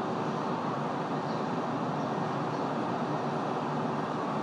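Steady, even rumble of a stopped car idling, heard from inside the cabin through a dashcam microphone.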